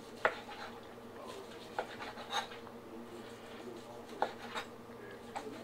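Knife slicing a smoked beef chuck roast thin on a plastic cutting board: soft sawing strokes through the meat, with several light clicks as the blade meets the board.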